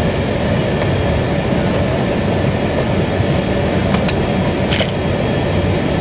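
Steady engine and rolling noise inside the cabin of a Boeing 747-400 taxiing, with a faint steady hum. Two brief clicks about four and five seconds in.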